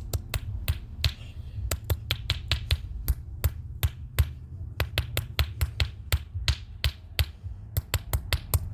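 Rapid, irregular sharp strikes, about four a second, of a tool hammering a small plastic speaker module to break it apart, over a steady low hum.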